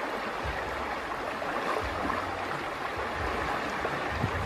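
Shallow water sloshing and splashing as hands and bodies move through it while feeling for fish under the surface, with a few dull low bumps.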